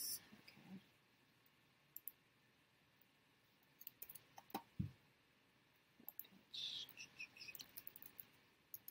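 Faint, scattered clicks of a computer keyboard and mouse as text is typed, with a busier run of keystrokes in the last few seconds and one soft thump just before the middle.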